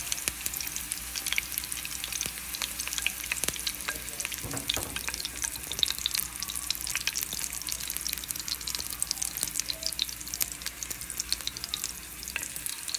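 Onion slices frying in hot oil in a frying pan: steady sizzling, dotted with many small crackling pops.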